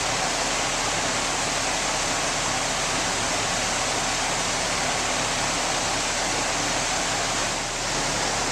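Rheem 3-ton, 12 SEER air-conditioning condenser running: a steady rush of air from the condenser fan, with the compressor muffled under a sound blanket.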